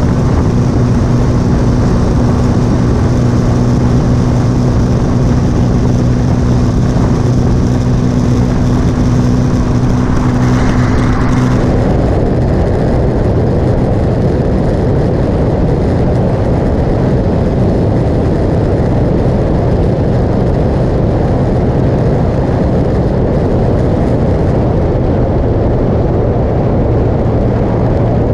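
Motorcycle engine running steadily at cruising speed under a heavy rush of wind and road noise. About twelve seconds in, the engine's steady hum drops back and the wind noise takes over.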